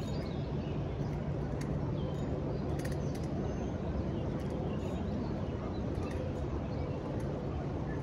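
Riverside ambience: a steady low rush of outdoor noise, with a faint low hum through the first half and birds chirping now and then.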